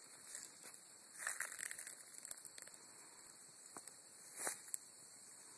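Faint clicks and rustles of hands handling a small plastic survival tool and its paracord lanyard, with louder rustles about a second in and again past four seconds.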